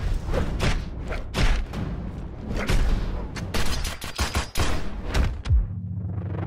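Rapid volleys of gunfire and heavy thuds over music, like the soundtrack of an action scene. The bangs come thick and fast, ease off briefly about six seconds in, then pick up again.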